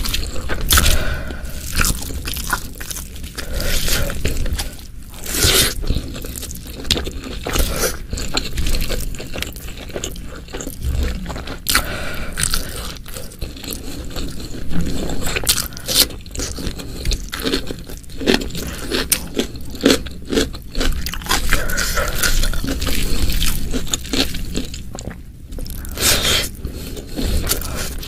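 Close-miked eating: a person biting and chewing crunchy food, with irregular crunches throughout.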